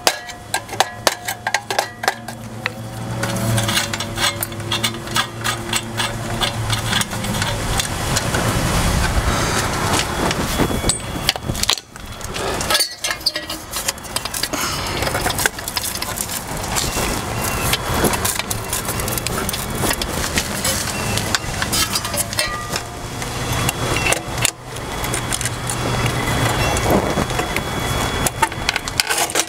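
Clicks and metallic knocks from an old metal pool-pump timer box being handled and pried at while it is taken off the wall, over a steady engine-like drone from an unseen machine.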